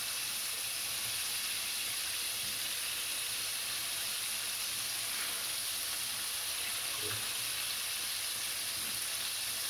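Chicken drumsticks frying in hot oil in a pot, a steady, even sizzle.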